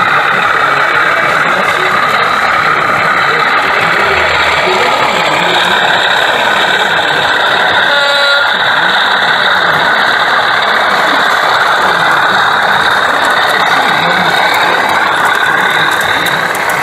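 O gauge model train running, a steady mechanical whir of motor and gearing, with a short pitched tone about eight seconds in.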